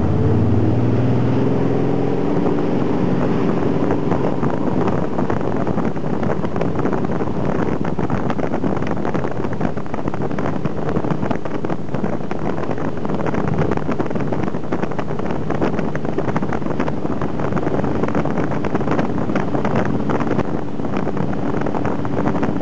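Tow boat's engine running at speed, its note climbing in the first couple of seconds and then holding steady, under the rush of wake and spray and wind buffeting the microphone.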